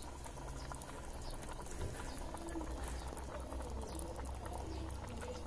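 A pot of rice boiling in chicken stock: steady bubbling with many small scattered pops.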